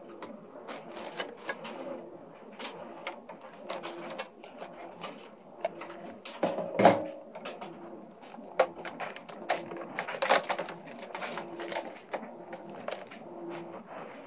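Clear plastic wrapping crinkling and rustling as it is handled, with scattered clicks and taps. The loudest crinkle comes about seven seconds in, with another burst of crackling around ten seconds.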